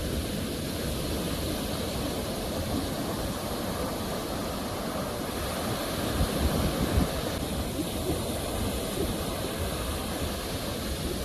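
Sea waves washing steadily, with a louder surge about six seconds in.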